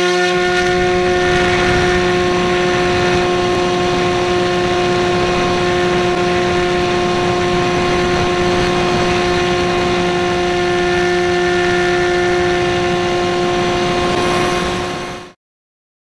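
Electric motor and pusher propeller of an Easystar 2 model plane at full power in a climb, heard from on board: a loud, steady whine with a rushing propeller noise under it. It cuts off abruptly about fifteen seconds in.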